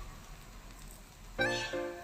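Background instrumental music, faint at first and coming in with held notes about one and a half seconds in.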